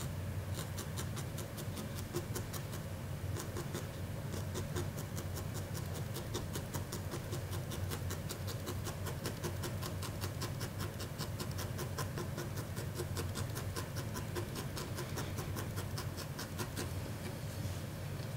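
Felting needle stabbing repeatedly through wool fiber and felt into the work mat: a quick, even run of short crisp pokes, several a second, stopping near the end, over a steady low hum.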